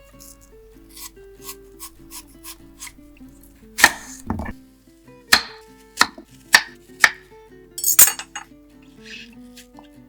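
A kitchen knife chopping on a cutting board: about six loud, sharp chops from about four seconds in, spaced half a second to a second apart, over soft background music.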